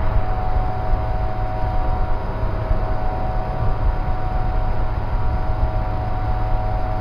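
High-speed CNC machining center running: a steady low rumble with a steady mid-pitched whine over it.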